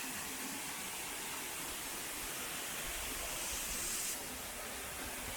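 Steady rush of running water from a small mountain stream, with a brief higher hiss about three and a half seconds in.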